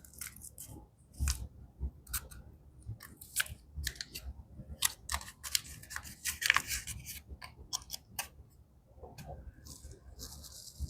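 A small instant-coffee packet being handled and opened, with irregular crinkles, crackles and clicks. A soft hiss comes near the end.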